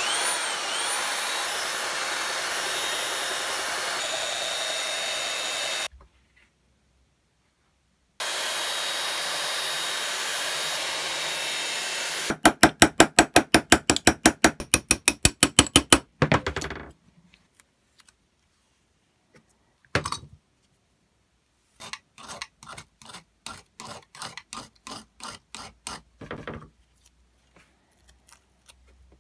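A benchtop belt sander runs steadily in two stretches separated by a short silence. It is followed by a fast run of sharp metal-on-metal hammer taps on a punch held against a cast-iron plane frog, about five a second for several seconds, then one more tap. Near the end comes a run of lighter scraping strokes.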